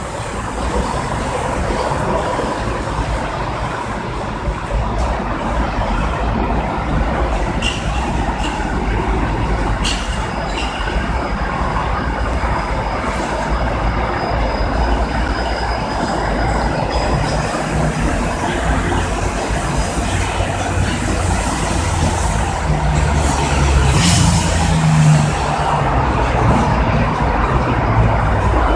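Steady road traffic noise with a low rumble, and a heavier vehicle's engine passing, loudest a little over three quarters of the way through.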